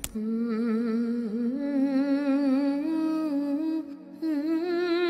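A voice humming a slow melody in long held notes with a gentle wavering vibrato, stepping up in pitch a few times and breaking off briefly about four seconds in before going on.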